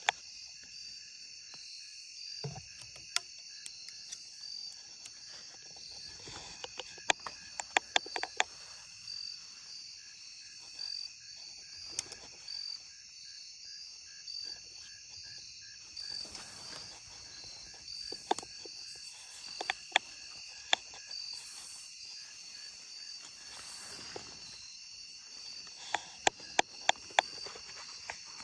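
Evening chorus of crickets and other insects, a steady high trilling with an even, rapidly pulsing note under it. Sharp clicks cut in now and then, several in quick succession twice, about seven seconds in and again near the end.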